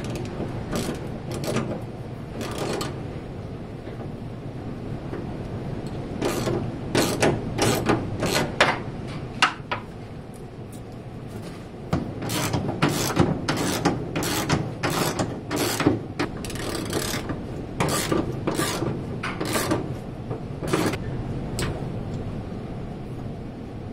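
Ratchet wrench on a long extension bar clicking in runs of short strokes, tightening the fuel tank strap nuts, with a pause in the middle.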